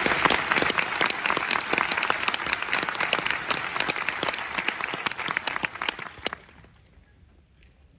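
Large audience applauding in an auditorium: dense clapping that thins and stops about six seconds in.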